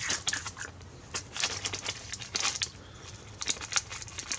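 Scattered light clicks and crinkles, small objects being handled.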